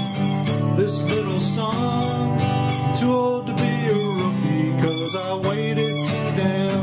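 Country-style song with strummed acoustic guitar.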